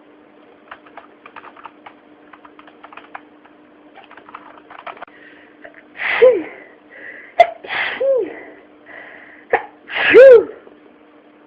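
A person sneezing three times, about two seconds apart, each sneeze with a short voiced "achoo". The last is the loudest. Faint small clicks come before the first sneeze.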